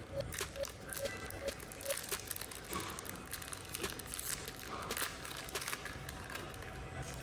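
Plastic packaging crinkling and rustling as it is handled, with scattered light clicks and taps.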